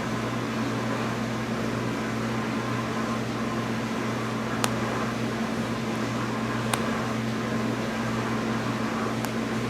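Steady electrical hum in the room, with three faint sharp ticks from a seam ripper snapping quilting stitches, the second about halfway through and the last near the end.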